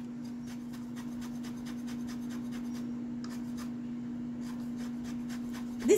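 Lemon peel being zested on a small handheld zester: quick repeated rasping strokes, about four a second, over a steady low hum.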